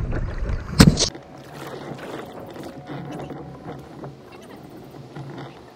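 Wind rumbling on the camera microphone of a kayak with a sharp knock about a second in, then quieter water noise around the kayak with faint clicks.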